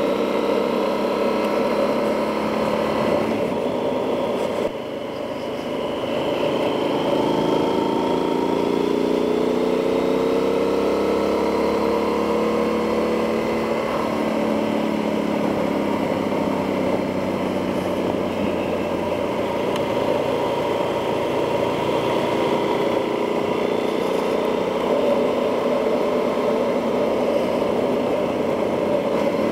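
Yamaha XT1200Z Super Tenere's parallel-twin engine running under way, picked up by a mic inside the rider's helmet. The engine note dips briefly about five seconds in, then climbs steadily for several seconds before settling into a steady run.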